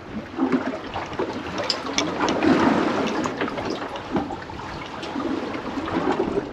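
Sea water sloshing and splashing against the hull of a small boat, with scattered clicks and knocks.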